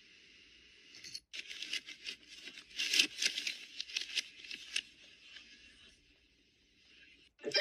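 Paper bag crinkling and rustling in a quick run of crackles and scrapes as a cat moves with the bag over its head, loudest about three seconds in and thinning out after about five. Before it, about a second of faint hiss.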